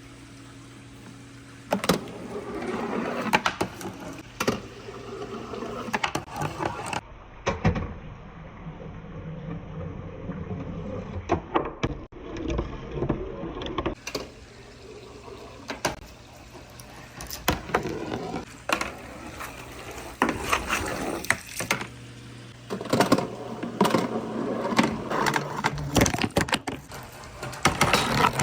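Marbles rolling and clacking down a wooden marble run, with many quick clicks and knocks as they hit the track and each other. A steady low motor hum runs under parts of it.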